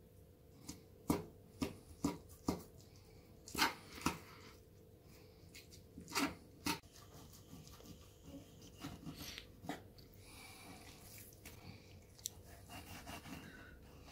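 Kitchen knife cutting a sole on a wooden cutting board: a string of sharp taps and knocks of the blade against the board, most of them in the first half, then quieter scraping and rubbing as the knife works along the fish.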